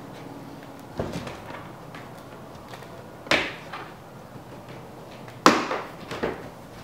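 Plastic tabs snapping and plastic trim knocking as the front bumper's fake air-duct cover on a Toyota Sienna is worked loose: a few sharp snaps, the loudest about five and a half seconds in.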